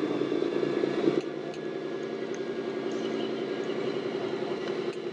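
Diesel engine sound from a scale RC truck's sound module, running steadily with an even pulse. It is a little louder for about the first second, then settles lower.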